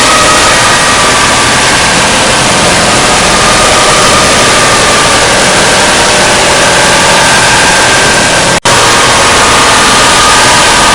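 Jump-scare sound effect: loud, steady static-like noise with faint wavering tones inside it, dropping out for an instant about eight and a half seconds in.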